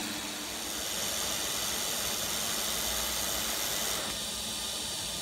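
TIG welding arc running a bead on steel plate at about 130 amps: a steady hiss that thins about four seconds in.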